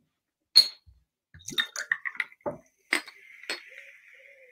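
Indian tonic water poured from a bottle into a glass of gin over ice: a few clinks of glass and ice, then a steady pour for the last couple of seconds.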